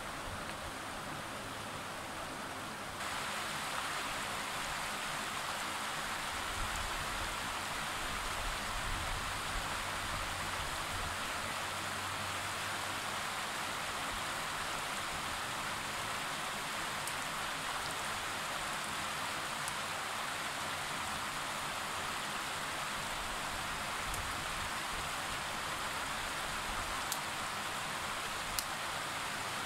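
Shallow, rocky river running steadily over stones, a steady rushing hiss that gets a little louder about three seconds in. A few faint clicks come in the second half.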